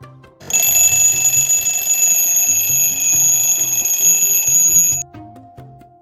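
Table alarm clock's alarm going off: a loud, steady high-pitched ring that starts about half a second in and cuts off suddenly about five seconds in, over background music with a steady beat.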